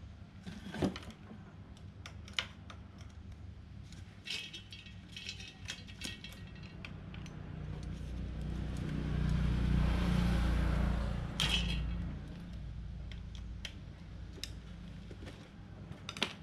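Metal parts and hand tools clicking and clinking as a disassembled lawn mower engine is worked on by hand, in scattered light taps. A low rumble swells up and fades away in the middle.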